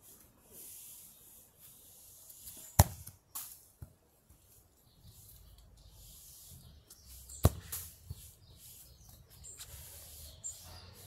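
A football kicked twice on a grass lawn: two sharp thuds about five seconds apart, the first followed by a few lighter knocks. A faint steady high hiss runs underneath.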